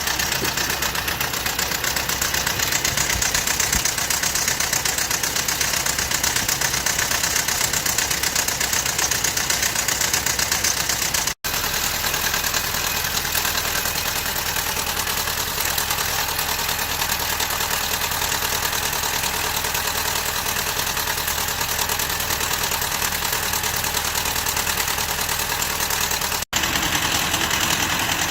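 Toyota 22RE 2.4-litre four-cylinder engine running with a rapid, diesel-like ticking that appeared after the valves were tightened to .007 in. intake and .011 in. exhaust; the owner fears a serious problem and has ruled out a broken timing chain guide and contact with the valve cover. The sound cuts out briefly twice.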